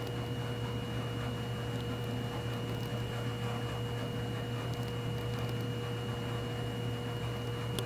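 Steady electrical hum with a faint hiss and two thin steady high tones: the recording's background noise. There is one faint click near the end.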